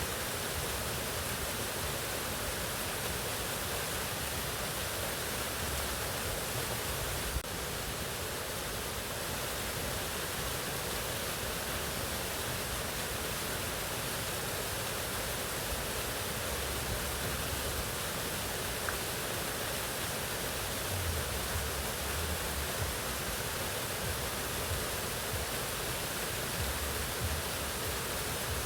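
Mountain waterfall: a steady, even rush of falling water, with one brief click about seven seconds in.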